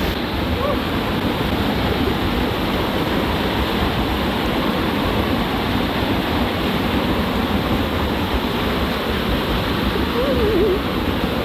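Steady rushing of a waterfall's falling water.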